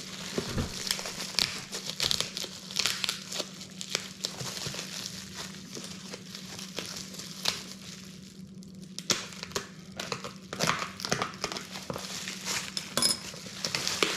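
Packing material rustling and crinkling as a shipping box is dug through by hand, among it loose packing peanuts, in a string of irregular crackles and small clicks with a short lull about halfway through.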